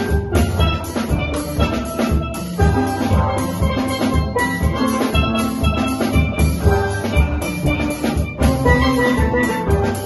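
Steel band playing a Christmas medley: steelpans ringing out melody and chords over yellow bass pans, with a drum kit keeping a steady beat.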